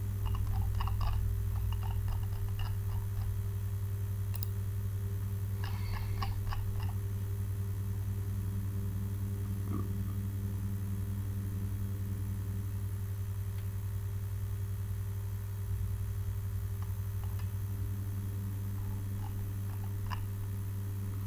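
Steady low electrical mains hum from the recording setup, with a few faint clicks in the first seven seconds or so.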